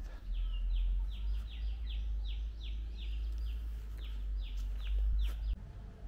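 A bird calling in a fast series of short, falling notes, about three or four a second, stopping about five seconds in. Beneath it is a low rumble that drops away near the end.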